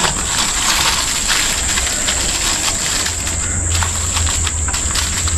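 Aluminium foil crinkling and crackling as it is folded and pressed around a whole fish.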